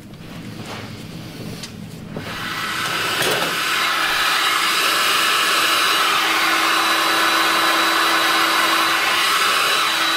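Electric heat gun switched on and blowing steadily, a loud even rush of air with a faint motor whine; it comes up about two seconds in. It is heating shrink sleeving onto the new copper fuel line.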